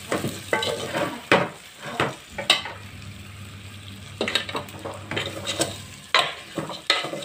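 Steel ladle scraping and knocking against a metal pot while stirring chicken feet frying in chilli masala, over a steady sizzle. The scrapes come in clusters, with a short stretch of sizzling alone a few seconds in.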